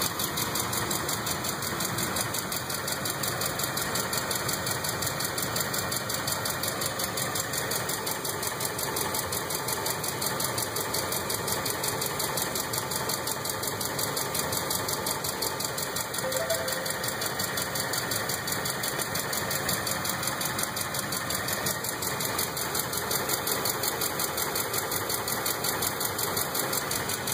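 2005 Ford F-150's 5.4-litre three-valve V8 running steadily with a fast, even ticking knock. The uploader puts the noise down to seized lash adjusters (hydraulic lifters).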